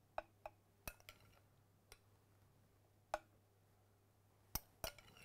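Sparse, light clinks of a metal spoon against ceramic plates and a glass bowl during plating, about nine separate ticks over near silence, the sharpest about three seconds in and at the very end.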